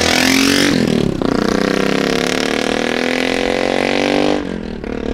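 Custom BSA Scrambler 650's big single-cylinder engine accelerating through a loud aftermarket exhaust: the revs rise, dip about a second in, then climb steadily before easing off near the end.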